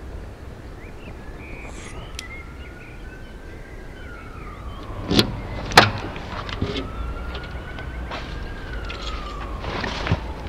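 Siren wailing, its pitch slowly rising and falling twice, over a steady low rumble. Two sharp bangs about half a second apart, near the middle, are the loudest sounds.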